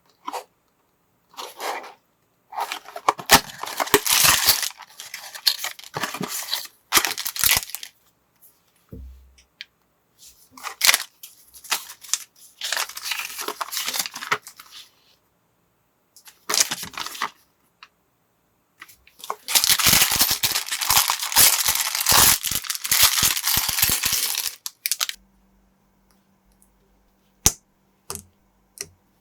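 Plastic parts bags being torn open and rustled, in long crinkly stretches mixed with sharp clicks of small plastic pieces. Near the end there are only a few single clicks.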